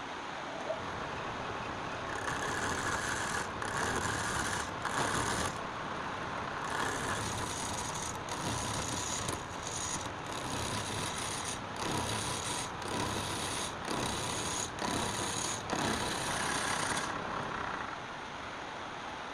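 A workshop power tool running with a steady hum. From about two seconds in until near the end, repeated hissing bursts of cutting or grinding come and go with short breaks between them.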